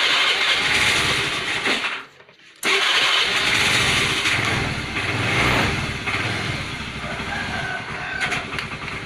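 Honda Vario 110 scooter's single-cylinder four-stroke engine started on the electric starter through a jumper wire that bypasses the weak starter relay. A first burst of about two seconds cuts off, then about half a second later the engine starts again and keeps running, slowly settling toward idle.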